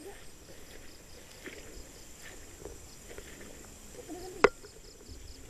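Faint rustling and handling noise in leafy brush, with one sharp click about four and a half seconds in.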